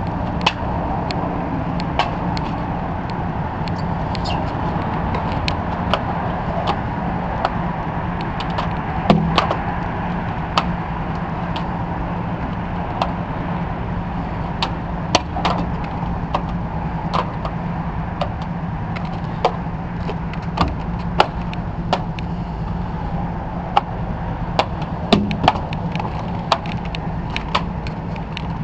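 Extension-pole window-washing work: scattered sharp clicks and knocks, a few louder ones about nine and twenty-five seconds in, over a steady low mechanical hum.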